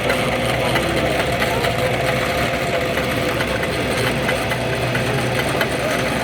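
Tarabita cable car running along its steel cable: a steady mechanical hum with faint irregular ticks.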